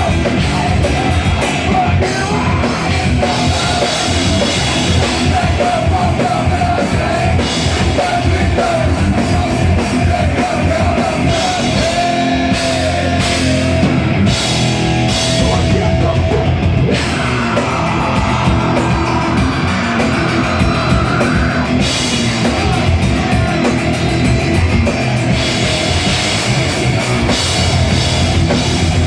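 A metal band playing heavy metal loudly, with a drum kit driving it throughout.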